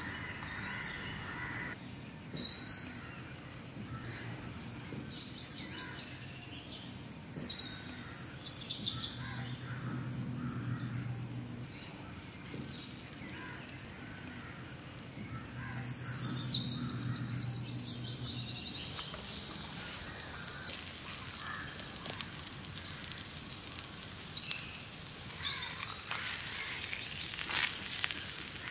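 Insects trilling steadily in a continuous high-pitched, finely pulsing chorus, with a few short bird chirps scattered through.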